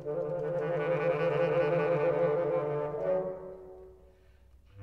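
Clarinet, bass clarinet and bassoon trio holding a chord of several sustained notes. About three seconds in it thins to a single low held note that fades almost to silence, and new notes enter near the end.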